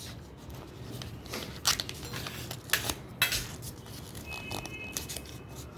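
A sheet of paper being folded and creased by hand: scattered crinkles and rustles as a paper aeroplane's folds are pressed down.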